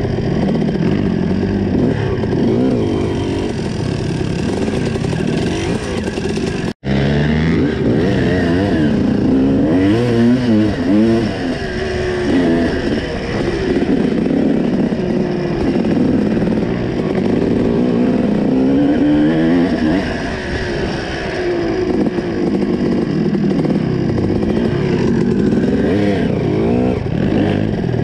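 Dirt bike engine revving up and down again and again while riding an off-road trail, heard close up from on board. The sound drops out for an instant about seven seconds in.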